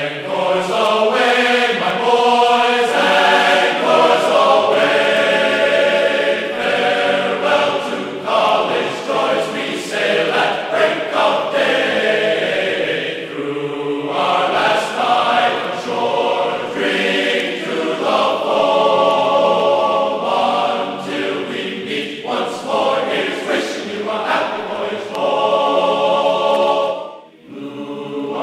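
Choral music: a choir singing sustained chords, with a brief break near the end.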